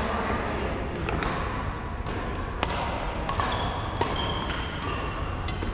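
Badminton rally: rackets striking a shuttlecock, a series of sharp hits about once a second, irregularly spaced, with a few short high squeaks of shoes on the court floor over a steady hall hum.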